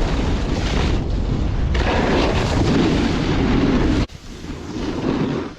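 Wind buffeting the microphone: a loud, low rumble with hiss. It drops abruptly about four seconds in to a quieter rushing.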